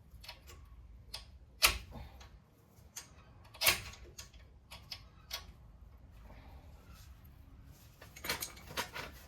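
Scattered sharp metallic clicks and knocks, loudest about a second and a half and four seconds in, then a quick cluster near the end: brake pad parts and wear sensors being clipped back into a Porsche 986 front brake caliper.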